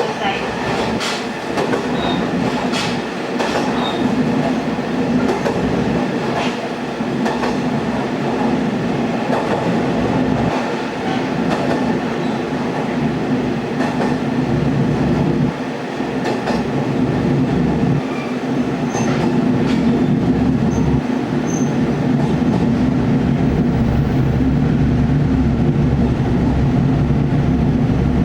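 Diesel railcar running along the line, its engine humming steadily. Wheels click over rail joints through the first half, and the running settles into a steadier, heavier low drone from about two-thirds of the way through.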